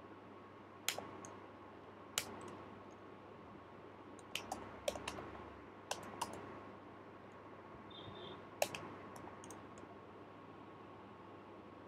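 Computer keyboard keystrokes, typing slowly and unevenly: about ten separate clicks, with a quick run of them about four to six seconds in.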